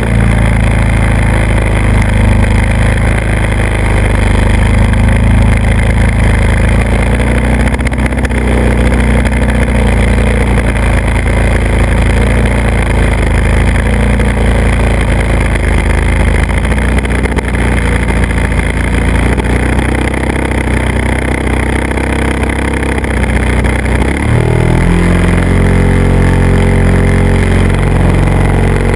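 Model airplane's motor and propeller running steadily, heard from a camera riding on the plane. About three-quarters of the way through, the pitch drops sharply and then climbs back as the throttle is eased and opened again.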